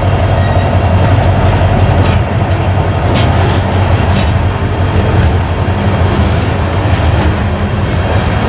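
A train rolling past close by: a steady, loud, heavy rumble of the wheels and cars on the rails, with a few clicks of wheels over the rail joints.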